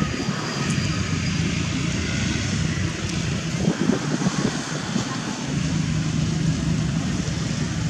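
Steady road-traffic noise from motorbikes and other vehicles running. An engine hum stands out near the end.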